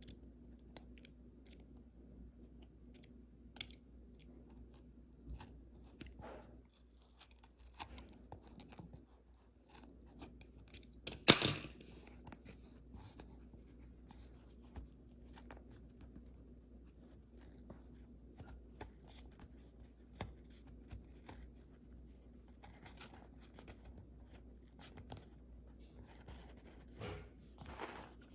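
Handling noises of a Samsung Galaxy S23+ retail box and its packaging: scattered small clicks and crinkles of cardboard and plastic, with a louder tearing crackle about eleven seconds in and another brief crinkle near the end. A low steady hum runs underneath.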